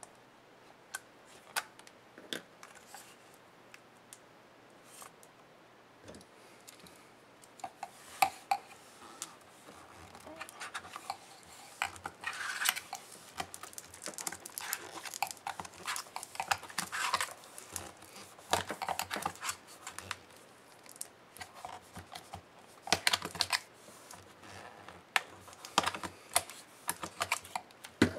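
Plastic housing of a Lenovo IdeaPad Flex 14IWL laptop being pried apart by hand, its snap-fit clips clicking and snapping loose. A few scattered clicks at first, then a busy run of crackling snaps and scrapes from about ten seconds in.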